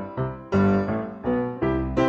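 Background piano music, chords struck and held in turn.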